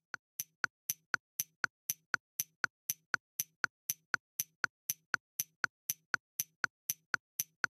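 Fast, even clock-like ticking, about four ticks a second in an alternating tick-tock, with no other sound beneath it: a ticking sound effect laid over the footage.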